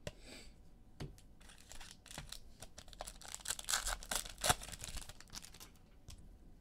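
A foil trading-card pack wrapper is torn open and crinkled by hand, a run of crackling with sharp clicks that peaks about four seconds in. It is preceded by a few light clicks of cards being handled.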